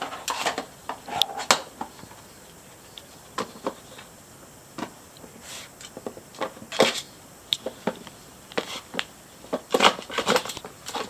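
Chihuahua nosing and pawing at a Trixie Poker Box 2 dog puzzle: irregular clicks and clatters of its plastic lids, sliders and drawers, in small clusters.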